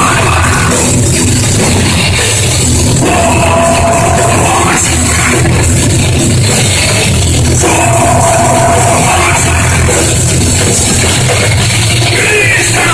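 Live rock band playing loudly, with drums, bass and guitar, and a melodic phrase that comes back every four to five seconds.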